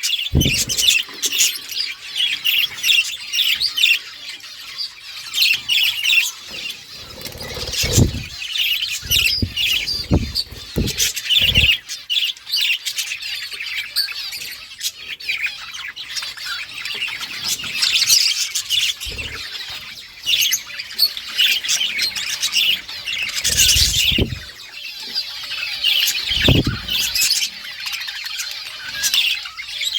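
A group of budgerigars chirping and chattering continuously in quick, overlapping high chirps and squawks. A few low thuds are mixed in, around a third of the way through and again later.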